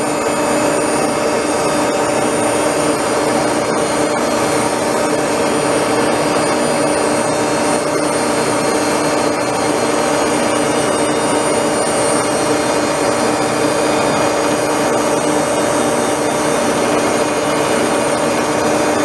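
Toolpost grinder's electric motor and wheel grinding the jaws of a Bison 12½-inch 3-jaw chuck turning in an Axelson engine lathe. The result is a steady hum with a couple of held tones under an even grinding hiss. The jaws are being ground true to take out their splay and runout.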